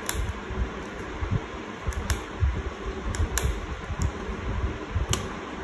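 Scattered light clicks and taps of small laptop parts being handled and worked on, about seven irregular clicks over a steady hiss.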